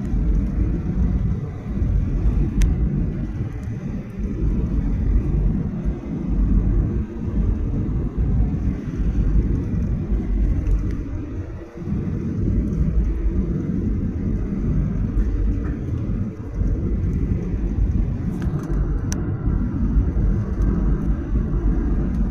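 Heavy, uneven low rumble inside the cabin of a Boeing 737-800.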